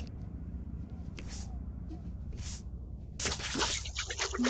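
Water splashing and sloshing as a toy is swished by hand through a tub of muddy water, starting about three seconds in; before that only a couple of faint short rustles.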